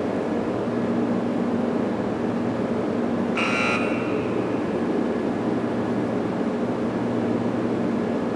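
Steady low droning hum. About three and a half seconds in, a short bright electronic tone sounds once over it, the sound effect for a red FAILED stamp.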